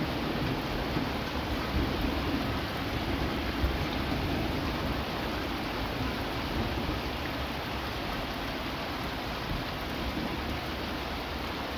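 Steady rain falling during a thunderstorm, with a low rumble of thunder underneath that is strongest in the first couple of seconds.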